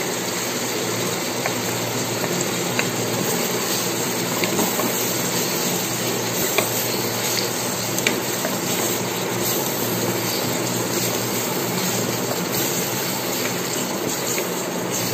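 Onions and tomatoes frying in oil in an electric rice cooker's pot: a steady sizzle, with a few light clicks as the spatula stirs against the pot.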